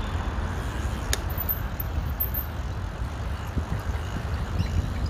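Wind buffeting the microphone of a camera carried along on a moving bicycle, a steady rough low rumble, with one sharp click about a second in.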